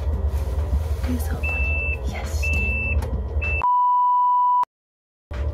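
Refrigerator door-open alarm beeping three times, about once a second, over a low hum. Then a loud, steady, lower-pitched bleep tone lasting about a second, cut off sharply into dead silence.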